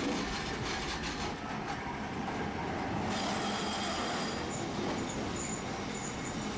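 Tosaden streetcar running past close by, its wheels clicking and rattling on the rails. After about three seconds there is the steady rumble of another tram drawing up the street track, with faint short high squeals repeating.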